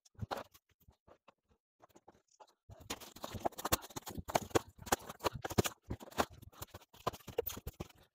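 Glued-down foam layout base being pried and scraped off the wooden benchwork with a hand tool: rapid crackling and crunching of foam. Nearly quiet for about two seconds near the start, then continuous scraping from about three seconds in.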